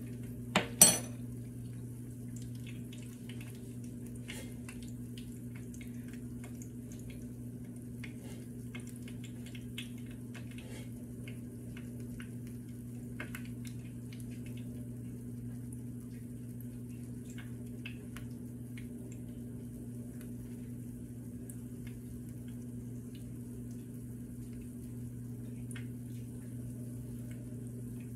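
Conch fritter batter frying in shallow oil in a pan: faint scattered crackles and pops over a steady low hum. Two sharp knocks of a utensil against the pan come about half a second and a second in.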